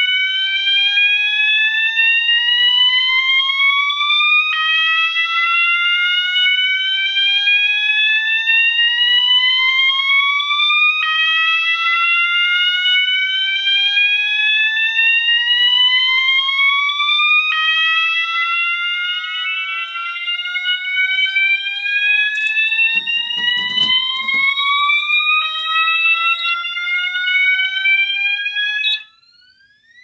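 Fire alarm horn sounding a repeating slow rising sweep, each sweep about six and a half seconds long before it drops back and starts again, incredibly loud: the system is in alarm from a pulled manual pull station. A few clicks come around three-quarters of the way through, and the tone cuts off abruptly near the end as the alarm is silenced at the panel.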